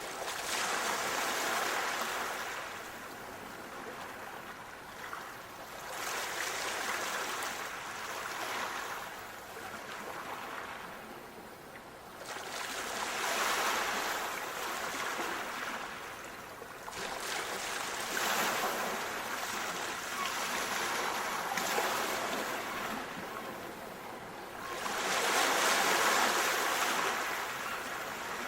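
Sea waves washing in, a rushing surf that swells and fades about every five to six seconds.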